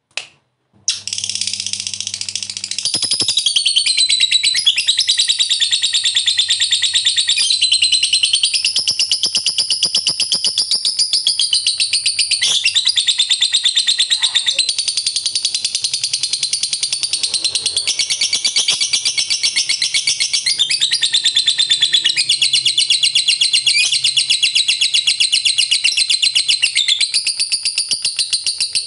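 Lovebird giving a long ngekek: a rapid, high-pitched chattering trill that runs on without a pause. It starts after a moment of silence about a second in.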